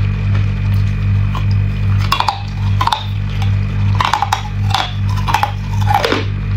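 Hard clear ice cubes being bitten and crunched between the teeth: a run of sharp cracks about two seconds in, then more cracks from about four to six seconds in. A steady low hum runs underneath.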